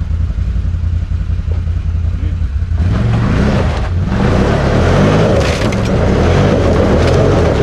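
Can-Am Outlander ATV engine idling, then revving hard from about three seconds in as it hauls a car over onto its side with a tow strap, with a few sharp cracks near the end.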